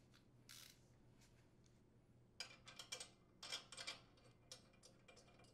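Faint clicks and scrapes of the impeller's center mounting bolt being handled and threaded in by hand: a soft rustle about half a second in, then two short bunches of clicks a little past halfway.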